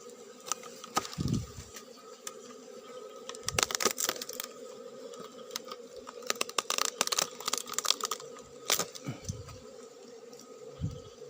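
Steady buzz of Asian honeybees (Apis cerana) at their opened nest, with two spells of crisp crackling and clicking as the honeycomb is broken and torn out of the nest cavity. A few dull thumps come in between.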